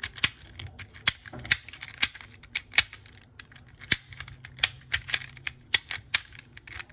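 Rainbow ball puzzle being twisted by hand: a run of sharp, irregular plastic clicks, about two to three a second, as its sections turn and click into place.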